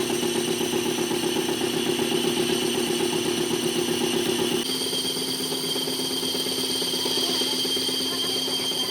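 Workshop machine running steadily with a hum and a high whine. The pitch of the whole sound changes abruptly about halfway through.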